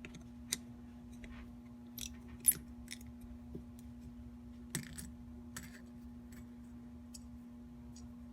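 Scattered small metallic clicks and scrapes of a screwdriver and tool working the idle mixture screw out of a 1960 Rochester Model B carburetor, the sharpest click about two and a half seconds in. A steady low hum runs underneath.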